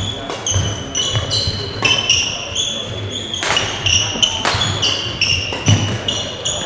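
Badminton doubles rally on an indoor court: sharp racket-on-shuttlecock strikes, a little under one a second, mixed with the high squeaks of court shoes and the thuds of footfalls in the hall.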